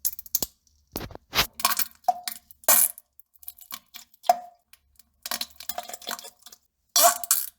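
Stool dropping into toilet water: an irregular run of short plops and splashes, several with a brief ringing note.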